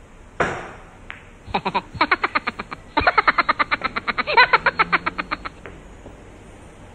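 A sudden hit about half a second in, then a fast, rapid-fire laugh, about eight "ha"s a second, lasting about four seconds and cutting off abruptly; it is a laughing sound effect marking a missed shot.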